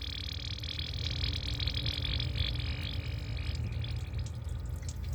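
Ford Focus 2.3-litre engine idling with a steady hum while coolant gurgles and burps air out of the open radiator filler: trapped air being bled from the cooling system, which the owner links to a P0128 code.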